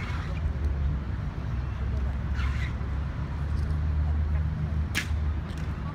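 A steady low traffic rumble from the surrounding city, with one sharp clack about five seconds in as an Evzone guard's hobnailed tsarouchi clog strikes the stone pavement during the slow ceremonial march.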